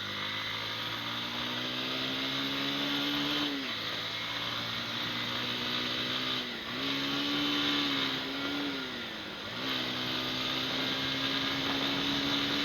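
Bajaj Pulsar motorcycle's single-cylinder engine running hard under acceleration at speed, its note dipping briefly about four times, with wind rushing over the microphone.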